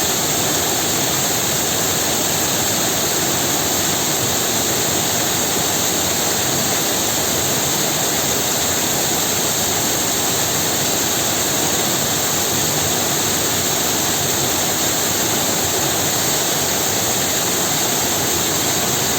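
Waterfall: a steady, unbroken rush of falling water, loud and even throughout.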